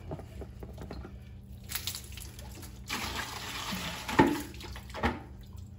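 Water sloshing and spilling from an APEC RO-90 reverse osmosis filter housing as the water-filled canister is spun off and pulled away: about a second of splashing from about three seconds in, ending in a sharp knock, with a second, lighter knock just before the end.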